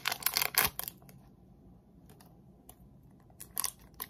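Trading-card pack wrapper crinkling as it is handled and torn open. There is a cluster of crackles in the first second, a quiet stretch, then more crackles near the end.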